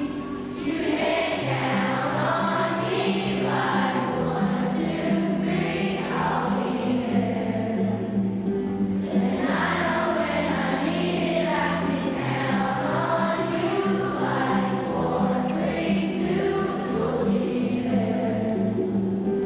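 Children's choir singing a song together over a music accompaniment with low held notes.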